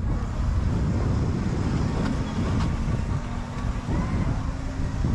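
Low, steady rumble of motor traffic, with a vehicle engine running.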